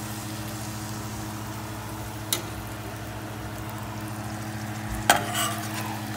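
Battered shrimp sizzling in hot oil in a stainless steel pan, over a steady low hum. A metal spoon clicks sharply against the pan about two seconds in, and again more loudly about five seconds in.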